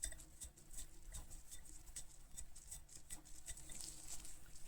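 Faint, irregular light clicks and scrapes of a metal adjustable spanner being handled, likely its adjuster being worked after it was freed from being seized.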